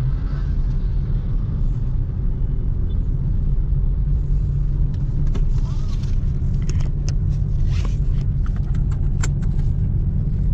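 Hyundai car driving along a road, heard from inside the cabin: a steady deep drone of engine and road noise. From about halfway through, a scatter of short, light clicks sounds over it.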